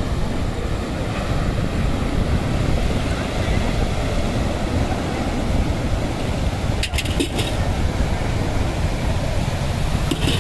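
Sea surf breaking and washing against a rocky shore, with wind buffeting the microphone: a steady low rush, with a few short clicks about seven seconds in.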